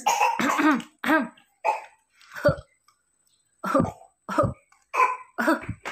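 A person coughing repeatedly: a series of about eight short coughs, the last few coming in a quick run about every half second.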